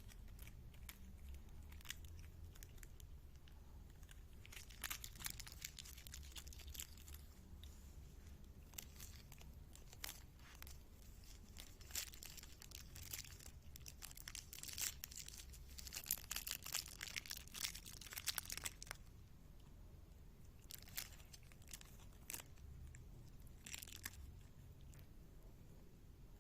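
A cat biting, chewing and pawing at crinkly plastic, making irregular crackling and crunching in bursts, busiest in the middle.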